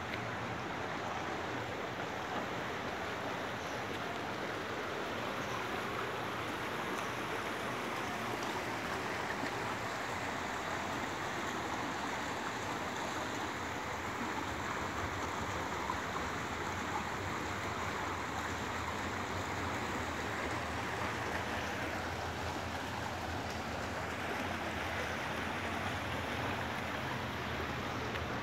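Shallow river running over rocks and small rapids: a steady, even rush of water.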